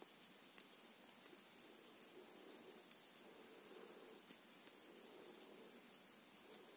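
Knitting needles clicking and ticking faintly and irregularly as stitches are worked, over a faint low hum.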